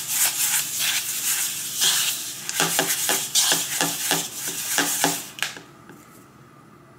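Bleach powder and developer being stirred together in a mixing bowl: a continuous scraping noise, with quick taps against the bowl at about four or five a second in the second half, stopping suddenly about five and a half seconds in. The mix is still gritty, not yet a smooth paste.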